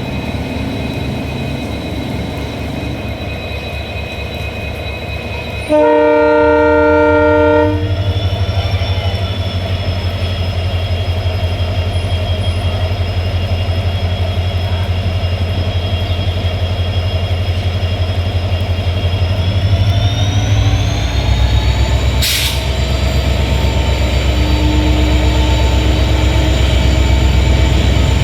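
Indian Railways diesel locomotive starting a departure. It hums steadily, then sounds a multi-note horn for about two seconds. Its engine then throttles up with a whine that rises in pitch, rises again later, and there is one sharp clank about two-thirds of the way through.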